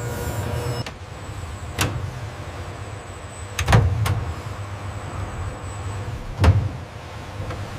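Factory machinery running with a steady low hum and a thin high whine. Sharp clicks and clunks break in about two, four and six and a half seconds in, the heaviest near four and six and a half seconds.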